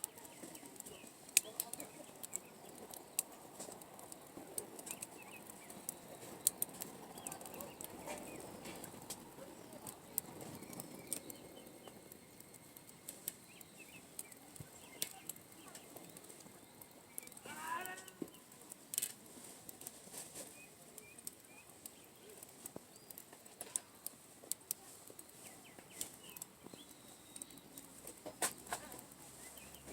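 Wood campfire crackling, with irregular sharp pops scattered throughout.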